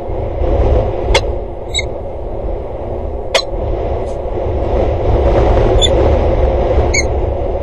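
Steady low outdoor rumble, broken by a few sharp clicks and short high peeps.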